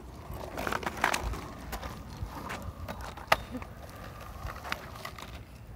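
Small hard wheels of a four-wheeled kick scooter rolling over asphalt: a low rumble with scattered clicks and knocks, the sharpest about three seconds in.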